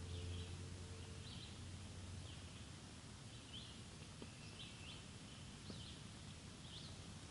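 Birds chirping faintly, short high chirps about once a second, over a low steady hum and hiss.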